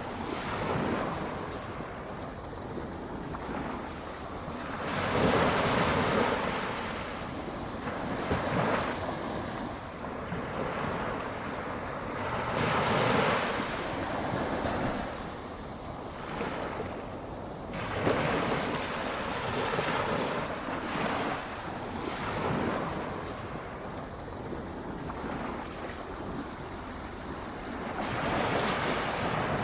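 Small, gentle ocean waves breaking on a beach, each wash swelling and fading every few seconds over a steady background hiss of surf.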